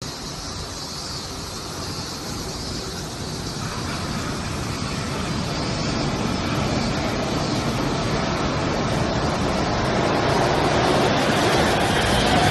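Suspended monorail train approaching and pulling into the station, its running noise growing steadily louder.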